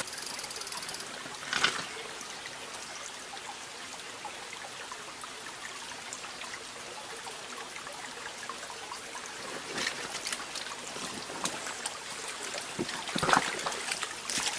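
Small mountain stream trickling and running over rocks in a steady hiss. A few brief knocks sound over it, two of them near the end.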